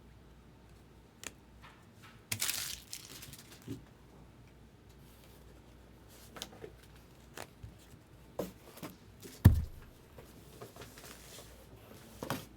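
Trading-card packaging and cards being handled on a table: a short tearing rustle of a wrapper about two seconds in, then scattered light clicks and taps. A dull thump about nine and a half seconds in is the loudest sound.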